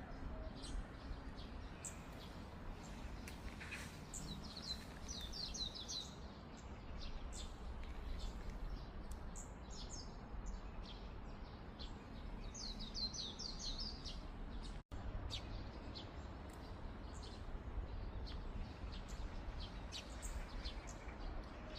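Wild birds singing: one bird gives short, rapid high-pitched chirping phrases every several seconds, with scattered single chirps from others over a low steady outdoor rumble.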